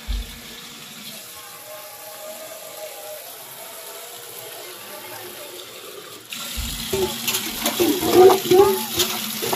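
Water from a wall tap streaming into a stainless steel pot, which gets suddenly louder about six seconds in as the flow hits the pot, with splashing and a shifting ringing tone from the metal.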